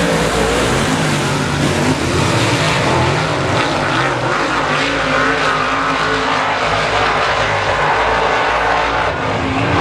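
A field of semi late model stock cars racing at once, several V8 engines running hard together. Their pitches rise and fall as the cars pass and work through the turns.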